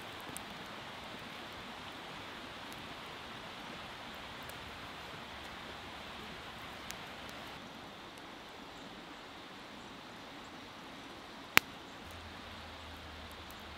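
Small stick campfire burning with a steady hiss, a few light crackles, and one sharp, loud pop near the end.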